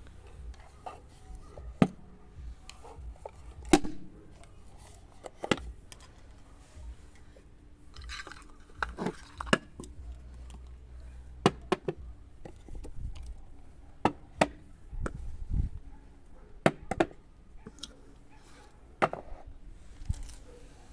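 Irregular sharp knocks and clicks, like wooden pieces being handled, set down and fitted together, with a short stretch of scraping about eight seconds in.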